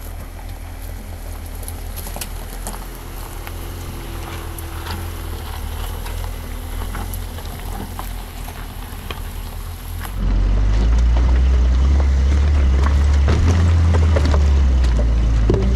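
Porsche 911 Dakar's 3.0-litre twin-turbo flat-six running as the car crawls over a rocky gravel track: a steady low rumble with scattered sharp clicks of stones under the tyres. About ten seconds in it jumps to a much louder, closer rumble with tyre crunch.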